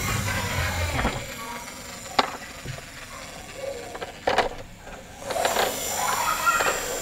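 Clicks and knocks of a plastic toy double-decker bus being lifted and handled, sharpest about two seconds in and again at about four and a half seconds, over a voice-like sound.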